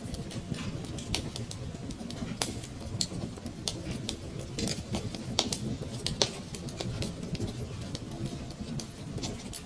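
Wood fire crackling in a fireplace: frequent irregular pops and snaps, a few louder than the rest, over a steady low rumble of the flames.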